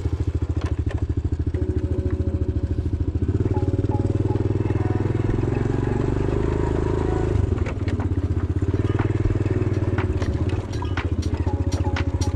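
Honda CT110 Postie bike's small single-cylinder four-stroke engine running as the bike rides off slowly across rough ground, its note shifting twice. Light clicks and rattles come in over the later part.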